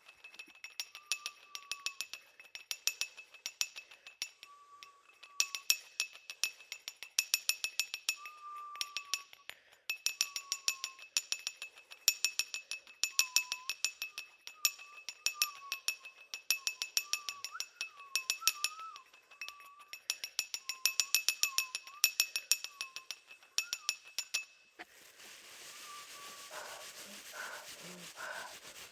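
A glass bottle struck rapidly and repeatedly with a percussion stick, giving a high, ringing clink in clusters of strikes, while a faint, wavering whistled tune runs over it. About 25 seconds in the clinking stops and breathy panting begins.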